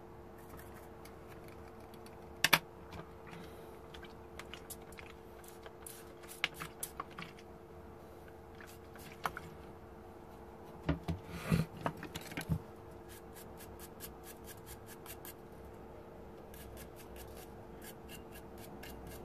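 A glass-fibre cleaning pen scratching at the pins of a small circuit board, with scattered light clicks from handling the board and tools. There is a short run of louder knocks about halfway through and quick, rapid scratching near the end, over a faint steady hum.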